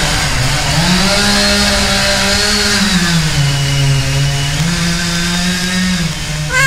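Chainsaw engine running, its pitch stepping up and down between two speeds a few times as the throttle is opened and eased.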